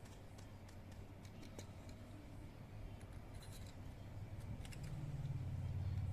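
A 2.0 mm drill bit turned inside a Zippo lighter's flint tube, giving faint scraping and clicking as it grinds up old flint that has hardened and jammed the tube. A low hum grows louder over the second half.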